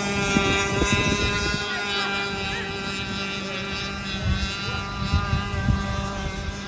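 Radio-controlled model boat engines running at a steady pitch, a continuous engine whine.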